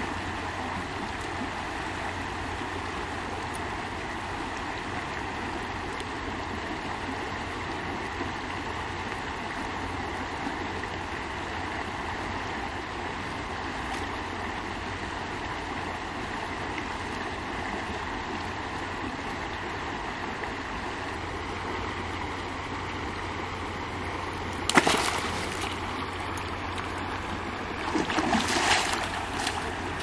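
Shallow river water flowing steadily over rocks. Near the end comes a sudden splash and then about a second of splashing as a hooked fish thrashes at the surface on the fishing line.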